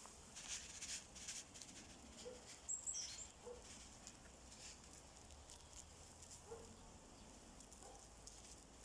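Quiet garden ambience: faint scattered rustling, with one short, high, falling bird chirp about three seconds in.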